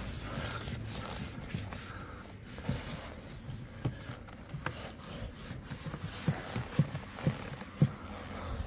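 A cloth rubbing and wiping over plastic engine-bay trim, with a scatter of short light knocks in the second half.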